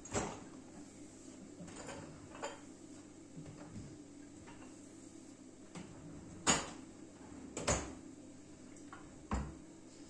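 Kitchen drawers knocking and bumping as they are pulled open and pushed shut while their fronts are wiped with a cloth: about five short sharp knocks, the loudest two in the second half, over a steady low hum.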